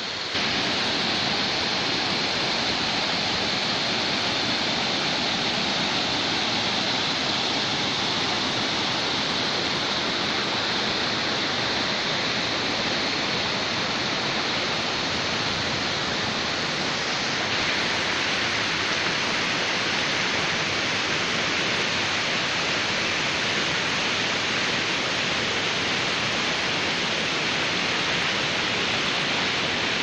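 Rocky stream rushing over boulders and small cascades: a steady, even rush of water.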